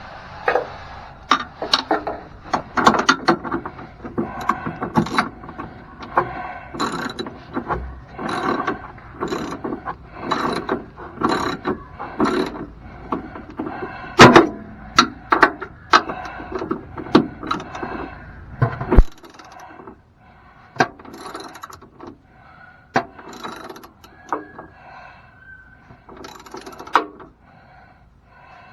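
Hand ratchet wrench clicking in repeated strokes as the step-rail mounting bolts are tightened. The strokes come quickly at first and grow sparser in the last third.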